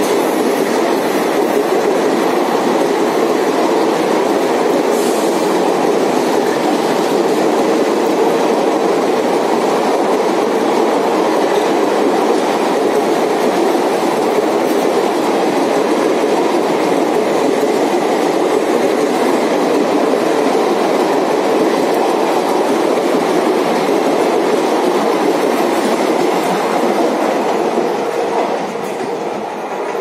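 A long rake of express-train passenger coaches passing a station platform at speed without stopping, wheels running over the rails in a steady loud rush. The sound fades near the end as the last coach moves away.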